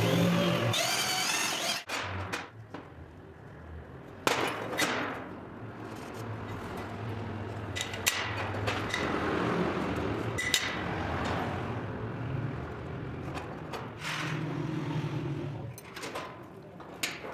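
Metalworking tool noise: a power tool running in stretches, with sharp knocks and scrapes in between.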